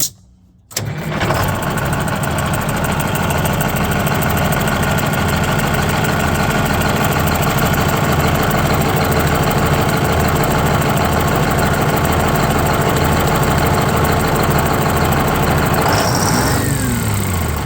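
Bus engine starting up about a second in and settling at once into a steady, evenly pulsing idle. Near the end a whine falls steadily in pitch over the running engine.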